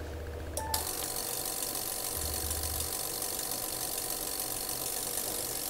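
Yaesu FT-991 transceiver running its internal automatic antenna tuner on the 40-metre band: a short beep as the tune button is pressed, then a steady rushing hiss from the rig as it transmits and tunes.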